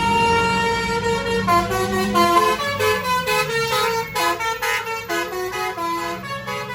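Bus telolet horn, a Basuri multi-tone musical horn, holding one note and then, about a second and a half in, playing a quick tune of changing notes, with the bus engine running underneath.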